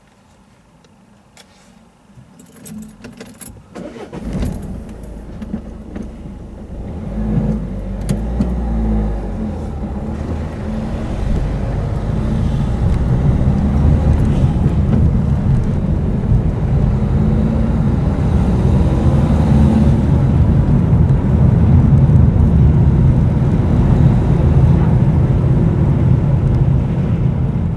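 A few clicks and jangles, then a car's engine and road noise heard from inside the car, building up over several seconds as it pulls away and then running steadily as it drives along.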